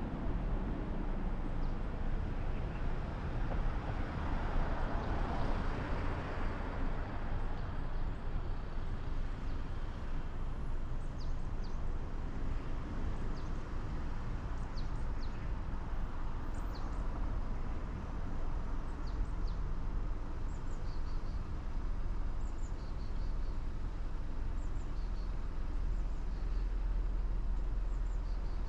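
Car on a city street with a steady low engine and road rumble; the noise swells briefly about five seconds in, then the car idles stopped in traffic. Small birds give short high chirps again and again from about ten seconds in.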